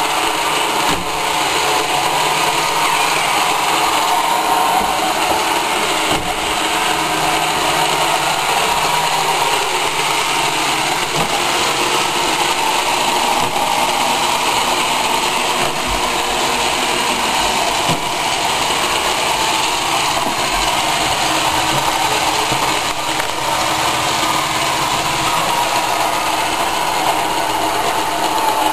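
iRobot Roomba robotic vacuum cleaner running: a steady motor and suction whine, with a few faint clicks and knocks along the way.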